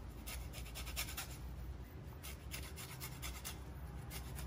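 A lemon rubbed back and forth on a handheld fine grater, taking off the zest: a run of quick, irregular scraping strokes, a few a second.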